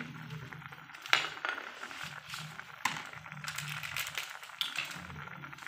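A metal ladle clinking against the pot a few times as a simmering vegetable stew is stirred, over a low steady hum.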